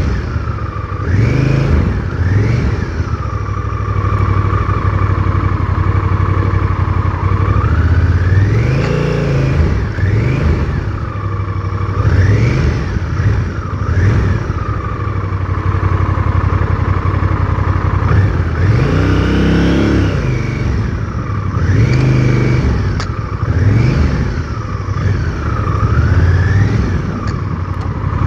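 Honda Rebel 1100's parallel-twin engine running at low speed, its revs repeatedly rising and falling as the throttle is opened and closed.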